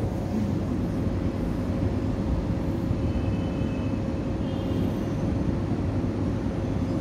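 Steady low rumble of background noise with a faint steady hum, heard in the prayer hall during a silent pause between the imam's takbirs.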